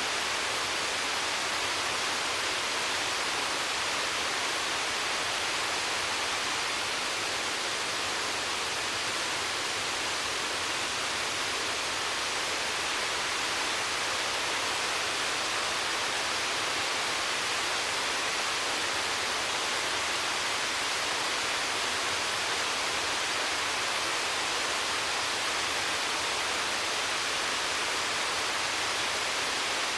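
Waterfall: a steady, even rush of falling water, unchanging throughout.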